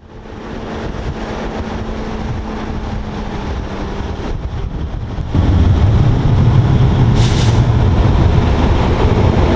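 Semi-truck pulling a trailer, its diesel engine running with a low rumble that grows clearly louder about five seconds in as the rig drives by, with a short hiss of air about two seconds later.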